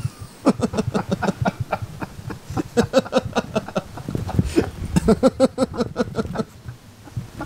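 Laughter: a fit of quick, repeated ha-ha pulses that eases off briefly about halfway and then picks up again.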